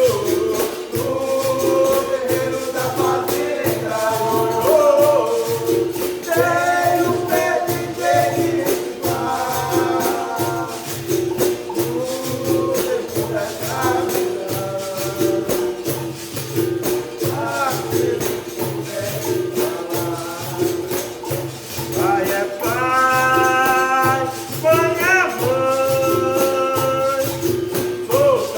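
Capoeira music: singing in phrases over a berimbau and the steady jingling of a pandeiro, likely in the benguela rhythm.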